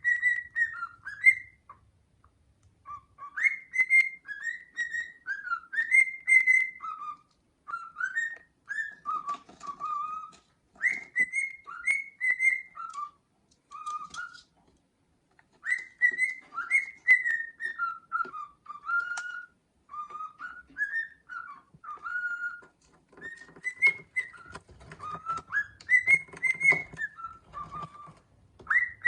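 Cockatiel whistling a song: phrases of clear notes that glide up and down, each a few seconds long with short pauses between them. Faint rustling comes in over the last few seconds.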